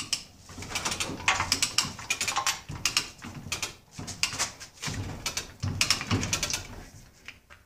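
Yale 3/4-ton chain hoist being worked by hand to lift an outboard powerhead: ratchet clicks and chain rattling in several bursts with short pauses.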